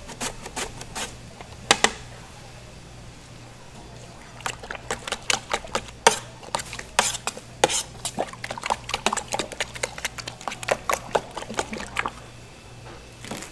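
A carrot is rasped across a plastic mandoline julienne blade in quick strokes for the first second. From about four and a half seconds in until near the end, a utensil stirs beaten eggs and chopped vegetables in a stainless steel tray, with irregular clinks and scrapes against the metal and a wet sloshing.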